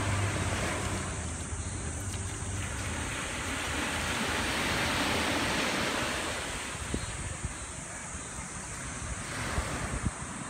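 Small waves washing onto a sand beach: the surf swells and eases in a slow wash, with wind buffeting the microphone.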